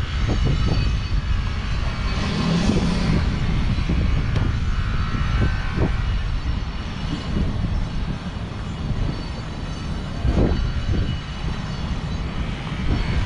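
A center console boat's engines running steadily at low speed as the boat idles forward, a continuous low drone with an uneven, rumbling edge.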